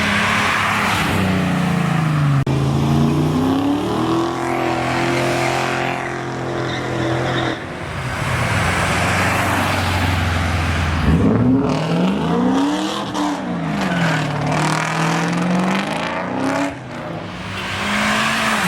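Car engines and exhausts accelerating away, the engine pitch climbing and dropping back several times through the gears, with a strong rise about eleven seconds in.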